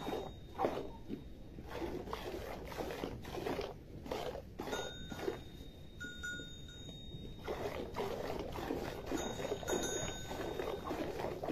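Sheep's milk squirting by hand into an enamel bowl, about two squirts a second, running together into a denser stream of squirts after about seven seconds. Faint high ringing tones come and go.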